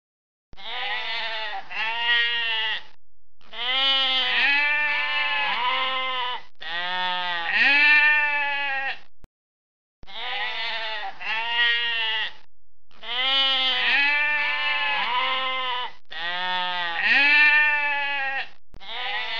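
Sheep bleating over and over in a run of about eight seconds that cuts off abruptly. After about a second's silence, the same sequence of bleats plays again.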